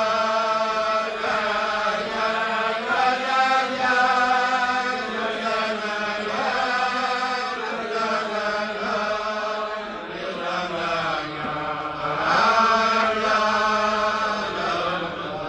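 A group of men singing a wordless Chassidic niggun together, a melody of long held notes that step up and down in pitch.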